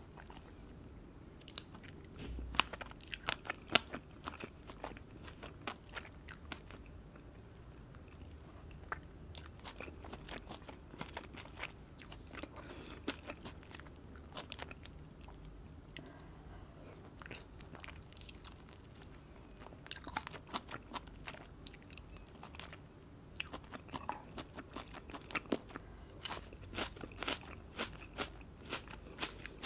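Close-miked chewing and biting of grilled meat dipped in sauce, eaten by hand, with many sharp wet mouth clicks scattered throughout.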